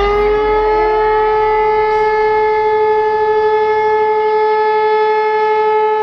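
Civil defence warning siren sounding a test alarm. Its pitch rises during the first second, then holds one steady tone with several overtones.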